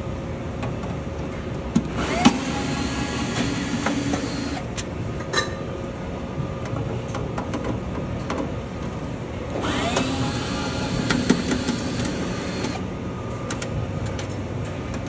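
Cordless drill/driver running in two bursts on the screws of a sheet-metal equipment housing, each burst spinning up with a rising whine. Light clicks of metal parts and screws are heard in between.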